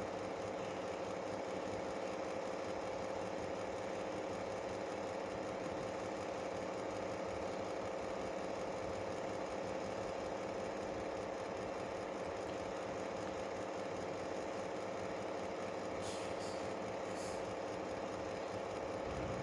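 Steady mechanical hum at an even level, with a constant tone in it, and a few faint light ticks near the end.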